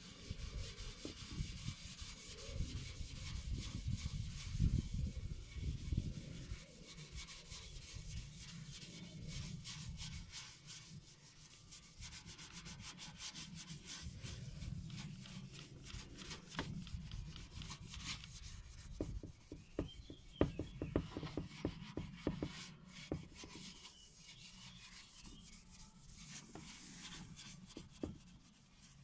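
Fine steel wool scrubbing a Volkswagen Beetle's chrome bumper with a paste rust remover: quick back-and-forth scratchy rubbing strokes that lift the rust from the chrome.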